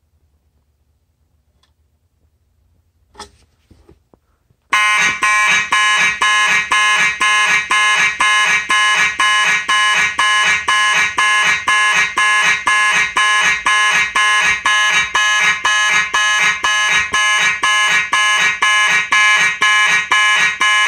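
A couple of soft clicks, then, about four and a half seconds in, a vintage Simplex fire alarm horn starts sounding loudly in march time, about two blasts a second. The pulsing is the system's alarm signal after a smoke detector was set off.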